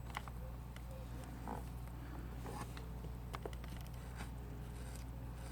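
Quiet steady low hum with scattered faint light clicks and taps, like small objects being handled.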